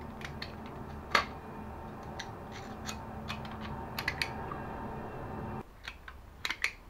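Sharp clicks and snaps of a stapler being worked open, reloaded and snapped shut by hand. The loudest snap comes about a second in, with a quick pair around four seconds in and another cluster of clicks near the end.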